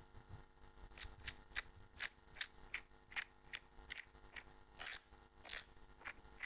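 Small hex screwdriver turning tiny screws into a 65 mm carbon FPV drone frame, giving a run of faint, sharp clicks at about two or three a second.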